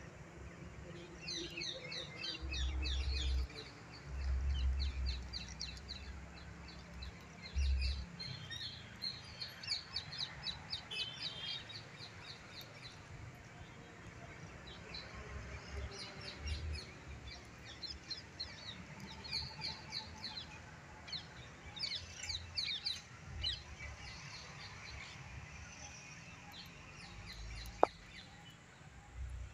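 Small birds chirping in quick repeated runs of high notes throughout. A few seconds in there are several low rumbling bursts, the loudest sounds, and a single sharp click comes near the end.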